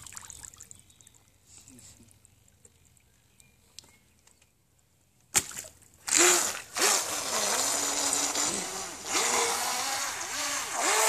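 Small water splashes as a radio-controlled catamaran speedboat is set down, a sharp click about five seconds in, then the boat's electric motor whines up at about six seconds, its pitch rising and falling with the throttle over the hiss of spray as the boat speeds off.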